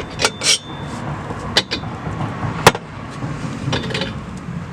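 Pliers clicking and scraping against a car's rubber exhaust hanger and its metal hanger rod as they try to pry the hanger off. There are a handful of sharp clicks, the loudest about halfway through, over a steady low rumble.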